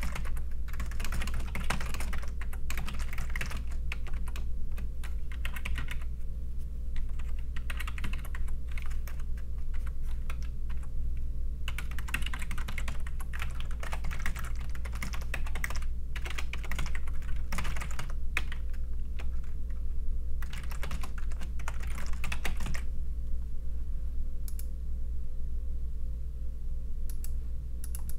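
Typing on a computer keyboard in quick runs of keystrokes, stopping about 23 seconds in, after which only a few scattered clicks are heard. A steady low hum runs underneath.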